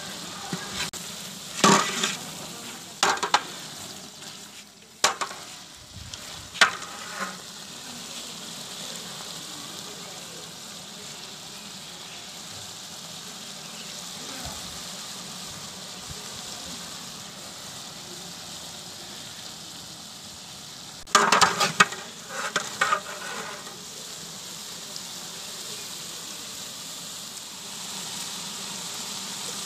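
Beef frying in a large degh, a steady sizzling hiss, with a long metal ladle knocking and scraping against the pot in short clatters a couple of seconds in and again about two-thirds of the way through.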